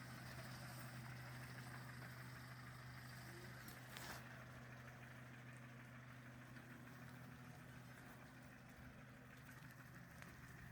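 Faint, steady low hum of a vehicle engine running, with a single brief click about four seconds in.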